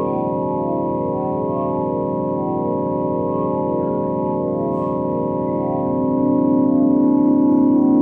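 Ambient 'space sound' drone: a chord of many steady, organ-like tones held without a break, some of them pulsing about once a second. It swells louder about six seconds in.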